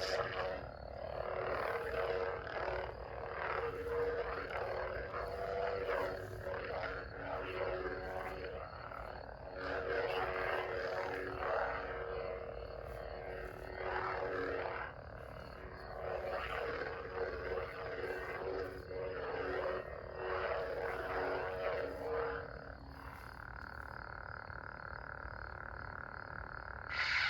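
Lightsaber hilt's electronic sound font humming, swelling up and down every couple of seconds with the swing sounds of the blade being moved. Near the end the swelling stops and a steady, higher hum holds for a few seconds.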